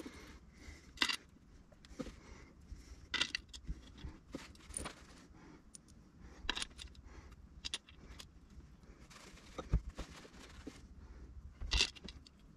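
Scattered light metallic clicks and clinks, every second or two, as valve cover bolts are set into a Rotax engine's valve cover and started by hand.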